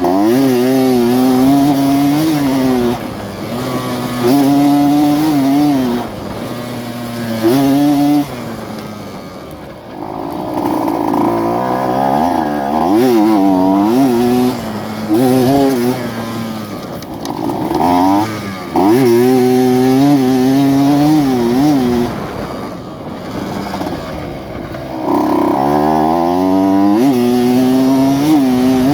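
Modified two-stroke Yamaha F1ZR underbone motorcycle engine being ridden and revved. Its pitch climbs and falls over and over, with short dips in level as the revs drop off between pulls.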